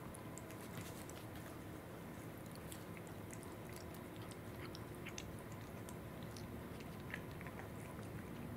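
A cat chewing and licking up small dog-treat crumbs from a foam floor mat: faint, scattered crisp clicks of crunching and tongue smacks.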